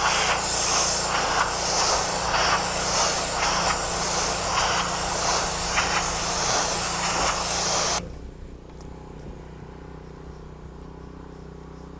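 High-pressure water spray from a pressure washer, hissing loudly and swelling about once a second. It cuts off suddenly about eight seconds in, leaving a faint steady hum.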